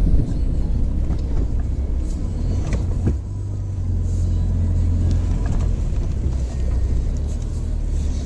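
Inside the cabin of a Toyota Fortuner 4WD driving a rough bush track: a steady low engine and road rumble, with scattered knocks and rattles from the bumps, the sharpest a jolt about three seconds in.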